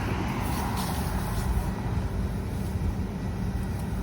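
Combine harvester's diesel engine running steadily with a low rumble.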